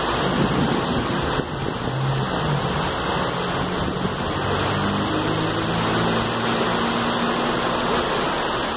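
Heavy downpour: a steady hiss of torrential rain and water rushing along a flooded street. A low hum runs underneath for several seconds in the middle.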